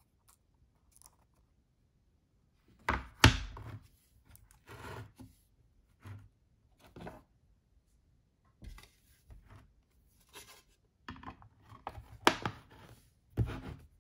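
iFixit Mako driver kit case handled on a wooden table and then its magnetic lid closed: a run of separate knocks, taps and rubbing sounds. The loudest come about three seconds in and about twelve seconds in, with a last knock near the end.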